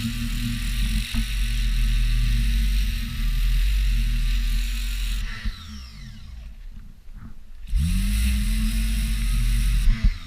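An engine running steadily. About five seconds in its note falls away and the sound drops, then it picks back up with a rising pitch near eight seconds.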